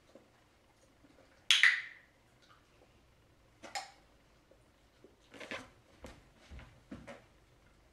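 Scattered handling noises of a person moving on a floor mat and getting up: a brief hissing rustle about one and a half seconds in, then softer rustles and a few soft footfalls in socks near the end.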